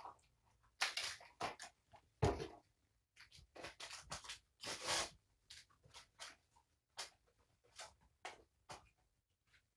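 Paper and cardboard packaging handled and torn open: irregular short bursts of crinkling and rustling, busiest in the middle and thinning out toward the end.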